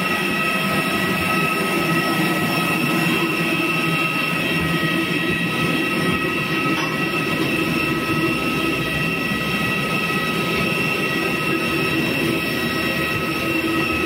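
Aircraft gas turbine running on the apron: a steady rushing noise with several high, unchanging whining tones.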